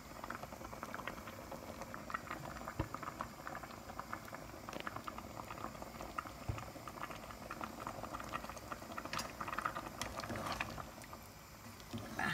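A pot of thick vegetable and meat soup simmering, a steady crackle of many small bubbles popping at the surface.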